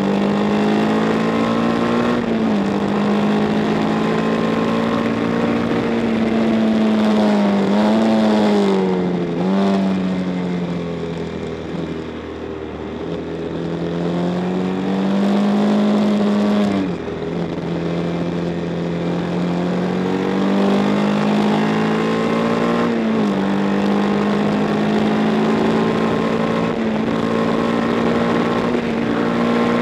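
Matchless G50 single-cylinder racing engine at full race pace, heard from on the bike. Its note climbs and then drops sharply several times as the rider changes gear. It eases off in loudness about twelve seconds in, as if rolling off for a corner, then builds again.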